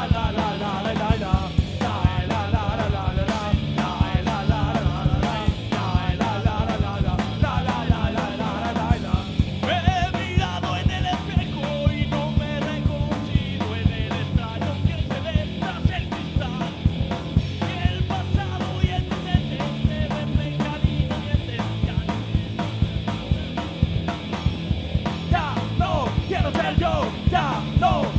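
Live punk rock band playing a cover song: drum kit, guitars and bass.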